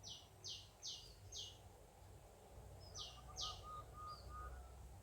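A bird calling faintly in a series of short, high notes, each sliding down in pitch. There are four in the first second and a half, then two more about three seconds in. A softer run of short, lower notes comes in alongside the later ones.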